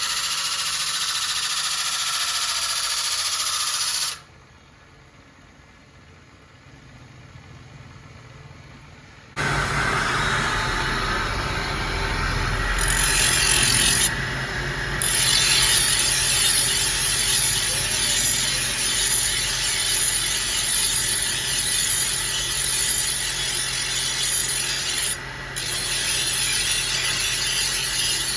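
Steady abrasive rubbing of metal on a sickle blade, as in sharpening or finishing. It drops away for about five seconds, then resumes louder and continues.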